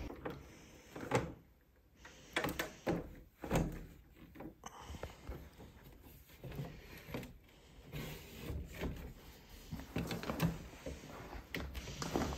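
Irregular knocks, scrapes and rustles of a boxed small greenhouse being opened and its parts handled.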